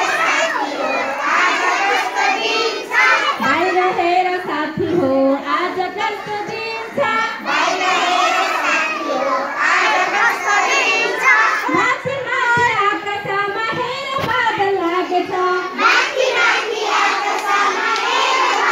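A large group of young children singing and shouting together, many voices at once.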